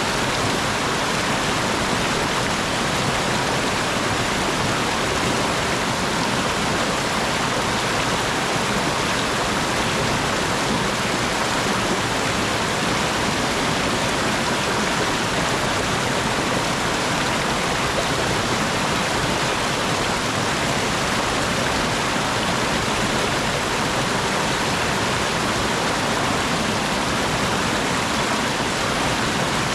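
Clear mountain stream tumbling down over rocks in a steady, full rush of water, unchanging throughout.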